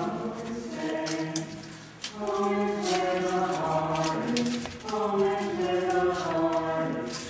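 A group of voices singing together without instruments, holding chords in phrases that break off briefly about two seconds and five seconds in. A few sharp clicks sound over the singing.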